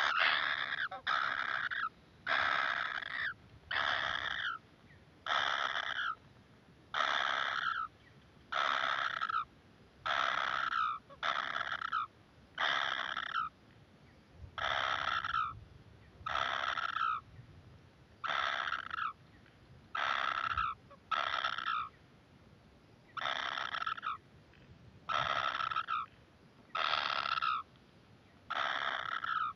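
Kingfisher nestlings calling in the nest: a call of about half a second, repeated about once a second, now and then in quick pairs.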